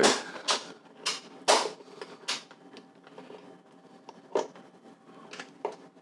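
Snap latches of a plastic Plano 3400 dry box being unsnapped to open it: a few sharp plastic clicks and snaps in the first couple of seconds, a pause, then a few more near the end.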